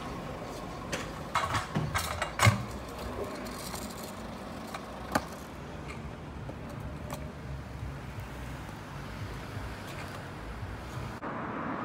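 Stunt scooter wheels and deck knocking and clattering on asphalt as tricks are landed: a cluster of sharp knocks about one to two and a half seconds in, then single knocks around five and seven seconds. Under it runs a steady low hum of traffic.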